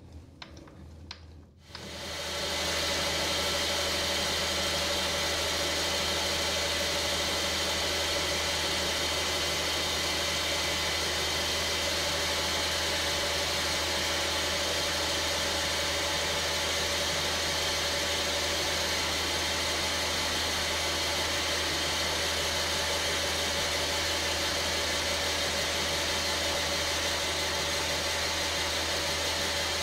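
Small metal lathe starting up about two seconds in, then running steadily with a hum and hiss while an insert cutting tool turns a brass rod down into a bolt.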